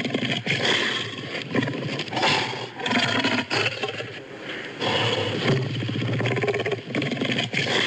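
Synthesised Tyrannosaurus rex roars mixed from lion, tiger and King Kong recordings: a run of deep, rough, growling roars that overlap, with short dips between phrases around three and five seconds in.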